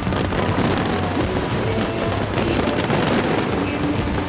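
Fireworks going off in a dense, continuous run of bangs and crackling, mixed with music.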